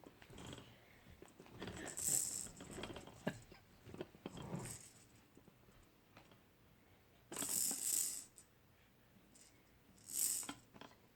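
Throat clearing: four short, raspy bursts spread over several seconds, the longest about two-thirds of the way through.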